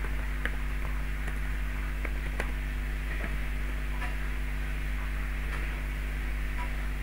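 Steady electrical mains hum with a few faint, scattered keyboard key clicks.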